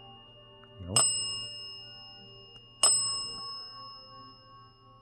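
A small metal bell struck twice, about two seconds apart, each strike ringing out with clear high tones and fading slowly.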